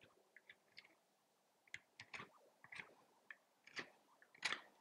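Carving knife shaving a cedar bill piece glued onto a wooden duck decoy: a faint string of short, irregular cutting strokes, the strongest near the end.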